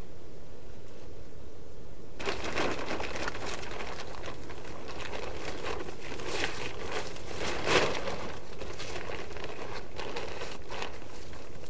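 Plastic tarp rustling and crinkling as it is shaken out, folded and stuffed into a pack. It starts about two seconds in, with a couple of sharper crackles in the middle.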